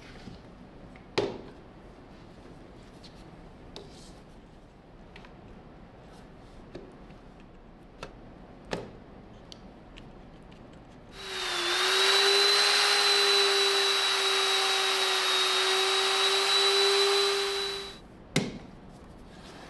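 Makita RP0900 plunge router switched on about eleven seconds in, running with a steady whine for about seven seconds as it cuts a profile along the edge of a round wooden tabletop, then switched off. A few sharp knocks come before it and one right after as the router and clamp are handled.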